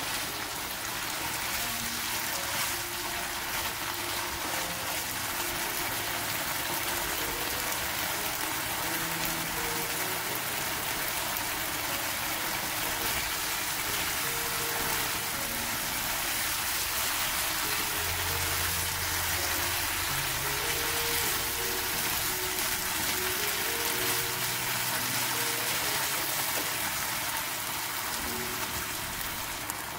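Mapo tofu sauce sizzling and bubbling in a wok, a steady hiss throughout. Soft background music plays underneath.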